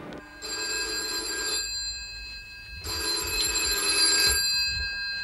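Telephone bell ringing twice, each ring about a second and a half long with a short pause between.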